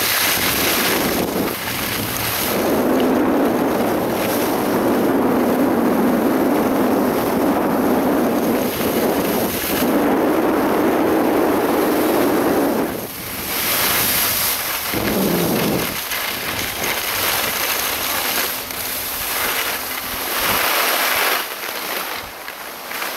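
Loud wind noise buffeting the Sony FDR-X1000V action camera's microphone as it moves fast down a ski slope, surging and easing in gusts and dropping off near the end.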